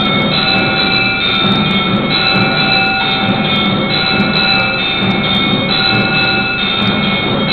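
Temple bells ringing continuously during the lamp offering (aarti): several clear bell tones keep sounding and restarting every second or so over a dense, unbroken clatter.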